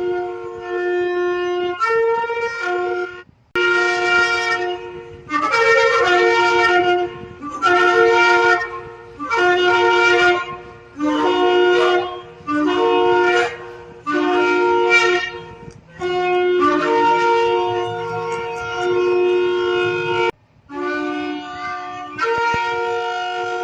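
Shofar (ram's horn) being blown in a series of loud blasts, mostly short notes of a second or two with brief breaks between them, then a long held blast about two-thirds of the way through and another starting near the end. The notes step between two nearby pitches.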